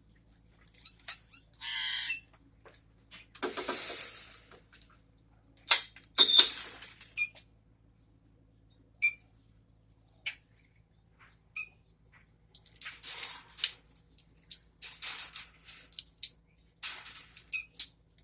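Pet birds squawking and chirping in separate calls: a drawn-out call about two seconds in, then harsher squawks, a pair of sharp loud calls around six seconds, scattered short chirps, and more raspy squawks near the end.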